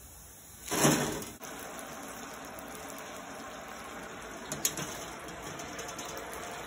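Cassava pieces going into hot oil in a deep-frying pot: a loud burst of sizzling about a second in, settling into steady bubbling and sizzling of deep-frying with a few sharp pops.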